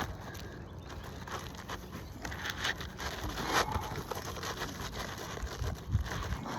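Scraping and rustling of a replacement asphalt roofing shingle being handled and worked into place on a shingle roof. There are louder short scrapes about three and a half seconds in and again near six seconds.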